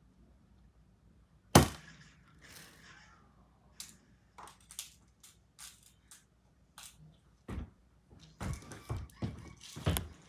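Small plastic clicks and clatter of clay beads being picked out of a plastic compartment organizer box, with one sharp knock about a second and a half in. The clicking gets busier near the end as the box is moved.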